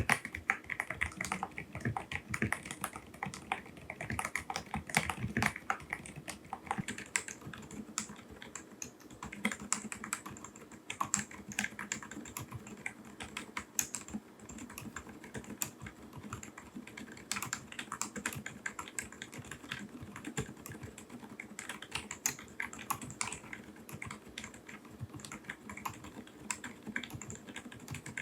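Fast, continuous typing on a mechanical keyboard fitted with silent (dampened) switches: a dense run of keystroke clicks.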